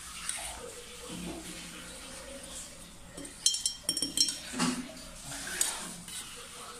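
Metal spoon scraping chili paste in a stainless steel pot and clinking against the mouth of a glass jar as the paste is spooned in, with a quick run of ringing clinks about three and a half seconds in.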